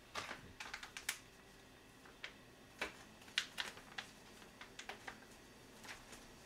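Plastic food packaging crinkling and crackling as it is handled: soft, short crackles at uneven intervals.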